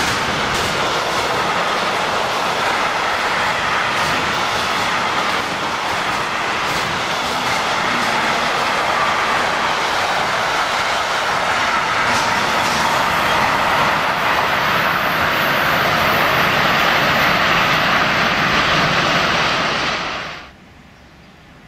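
Long intermodal freight train of wagons carrying semi-trailers rolling past at speed: a loud, steady rolling and rattling of steel wheels on rail with occasional clicks. Near the end the sound drops suddenly to a much quieter, distant sound.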